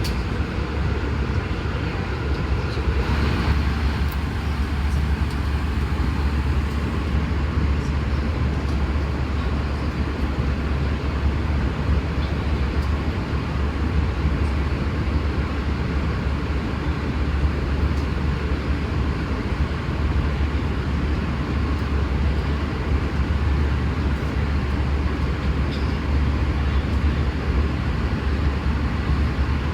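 Steady cabin noise of an Airbus A320 airliner in flight: an even rush of engine and airflow noise with a strong low rumble.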